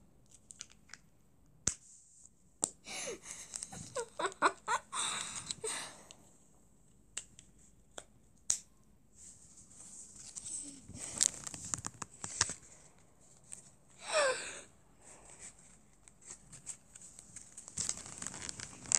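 Rustling and clicking handling noise from a phone's microphone being held and moved, with a few short, wavering vocal sounds from a child.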